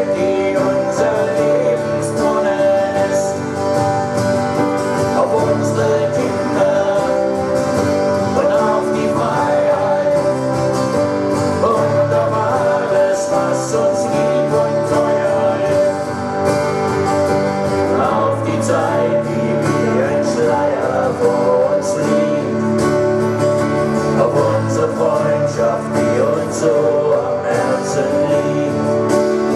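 Live band music with guitar to the fore, a long stretch without clear sung lyrics.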